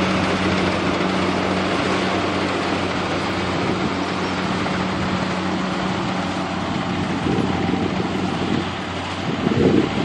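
Kubota DC70 rice combine harvester running steadily while harvesting, its engine hum mixed with the whirr of the threshing and grain-delivery machinery. The hum drops somewhat after about seven seconds.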